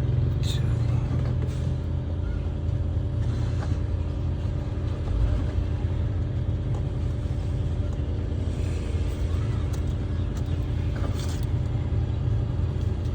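A car running with its AC blower on: a steady low hum with several even tones, unchanging throughout.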